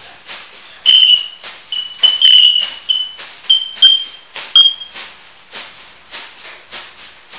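Grey-green olive lorikeet giving a rapid series of short, high, piercing whistle notes over the first five seconds. Soft raspy chirps repeat about every half second throughout.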